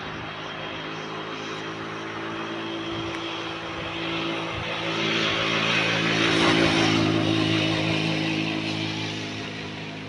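An engine running steadily at an unchanging pitch. It grows louder to a peak about two-thirds of the way through, then eases off a little near the end.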